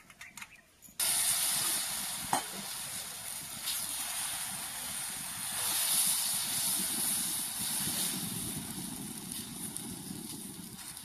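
Wheat-flour batter sizzling on a hot iron tawa as it is spread thin by hand: a steady hiss that starts suddenly about a second in, after a few faint clinks of dishes.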